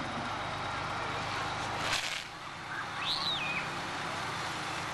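Fire engine's motor running steadily, cutting off abruptly about two seconds in. A steady hiss follows, with one short high-pitched rising-and-falling call about a second later.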